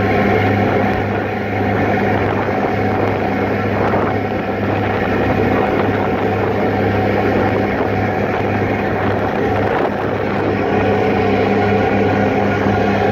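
Passenger ferry under way: its engines running with a steady low hum over a constant rush of wind and water.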